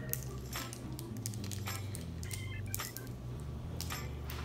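Plastic candy wrappers crinkling and clicking as they are handled and torn open, in scattered short crackles over a steady low hum.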